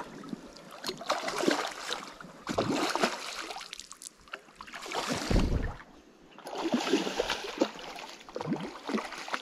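A hooked Atlantic salmon thrashing and splashing in shallow river water at the bank, in irregular bursts over the flow of the stream.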